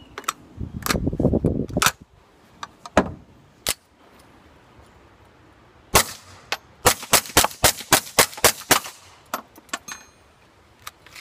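Gunshots: a few scattered shots in the first seconds, then a rapid string of about ten shots in under two seconds.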